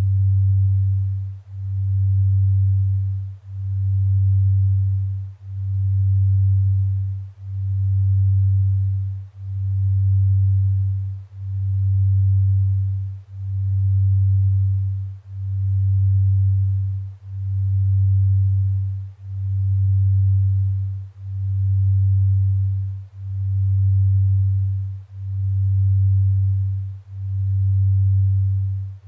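A deep, pure sine tone near 100 Hz, swelling and fading evenly about once every two seconds. It is a delta binaural-beat tone for sleep induction, its slow beat set to the delta-wave range.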